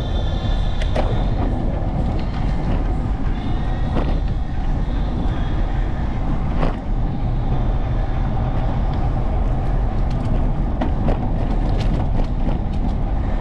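Steady low wind rumble on the microphone of a camera carried on a moving bicycle. The bike and its mount rattle in scattered sharp clicks over the path.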